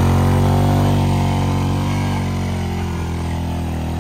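A motorcycle engine running steadily, its note easing slightly down and fading gradually.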